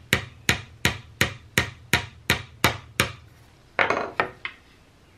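Small chasing hammer tapping a metal pin into a wooden rifle stock: about ten light, evenly spaced taps at just under three a second, then a short cluster of knocks about four seconds in. The taps are kept gentle so as not to crack the stock, and no crack is heard.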